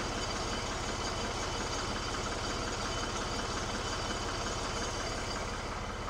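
1975 Ford 550 backhoe's diesel engine idling steadily, with an even low rhythmic chug.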